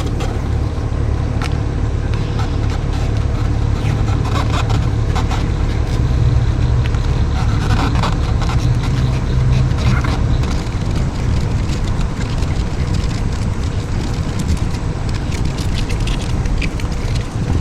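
Toyota SDK7 skid steer's engine running steadily, a constant low rumble with clicks and rattles over it.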